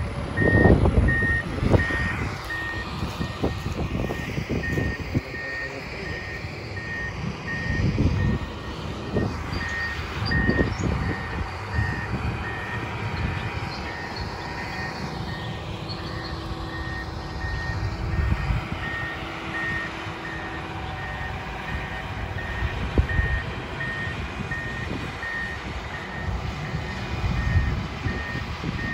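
Reversing alarm on a John Deere motor grader, giving steady, evenly spaced single-pitch beeps over a low rumble.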